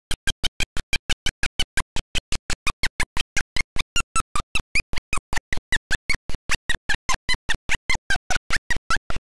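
Game audio of crowd and commentary breaking up into a rapid, regular stutter, chopped into about six short bursts a second with silent gaps between. This is a playback or transfer dropout glitch from the old videotape.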